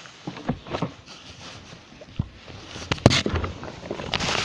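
Handling noise close to the microphone: scattered clicks, knocks and rustling, with a sharp knock about three seconds in and denser rustling after it.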